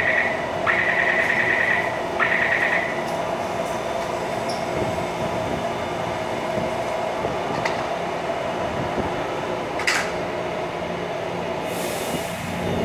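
Taipei Metro C321 train at the platform, its door-closing warning sounding as rapid high beeps in three bursts of about a second during the first three seconds, over the steady hum of the train. A sharp knock comes about ten seconds in, and a burst of hiss near the end as the train starts to pull out.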